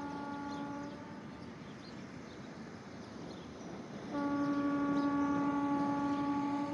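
A train horn sounding two long, steady single-pitch blasts: one trailing off about a second in, and a louder one starting about four seconds in.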